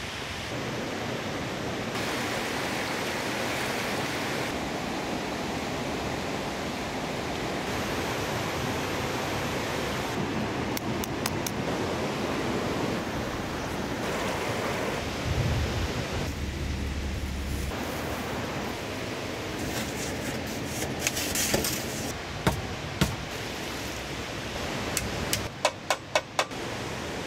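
River water rushing over rocks in rapids, a steady wash of noise. Near the end comes a quick run of sharp knocks.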